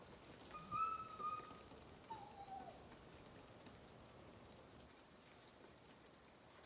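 Two faint high-pitched animal calls: one held for about a second near the start, then a shorter call falling in pitch.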